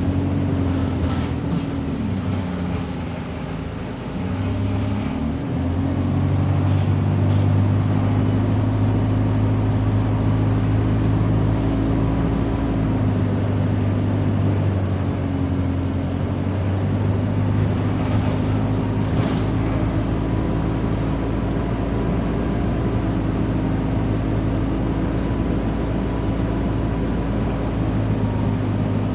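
Alexander Dennis Enviro200 bus engine and cooling fan heard from inside the saloon while the bus is under way, a loud steady drone. It sags in pitch and level about three to four seconds in, then picks up and holds steady.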